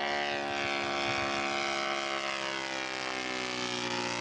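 Radio-controlled scale model airplane flying a speed run: its motor and propeller give a steady, droning buzz, with a pitch that sags slightly as it passes.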